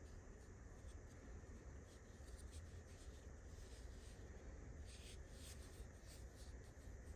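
Near silence, with faint rubbing and scratching of fingers handling a Monster wearable neckband speaker's rubberised plastic body and fabric grille; a few light scratches cluster in the middle, over a low steady hum.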